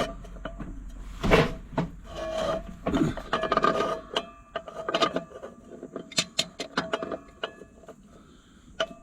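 Irregular clicks, knocks and rubbing or scraping sounds from hand work on the belt pulley of a 1948 Allis-Chalmers C tractor, engine not running. The sounds are denser in the first half and thin out to scattered clicks near the end.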